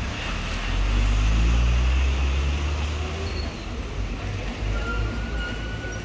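Street traffic: a heavy vehicle's engine rumbling low, loudest one to two seconds in, over steady roadway noise. A thin high tone sounds briefly near the end.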